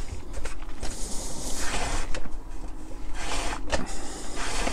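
Strips of skin lacing being pulled through the punched holes of a drum skin, rubbing and swishing in uneven surges as the hands draw them through.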